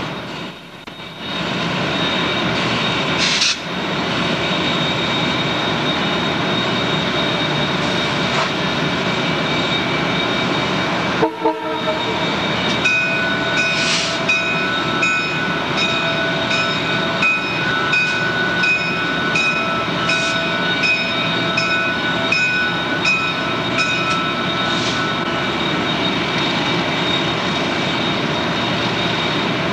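Train noise in an electrified rail yard: a dense, steady rumble. Midway, for about ten seconds, a set of steady high tones sounds in short, evenly spaced pulses a little over once a second, with brief dropouts in the sound near the start and again before the pulses begin.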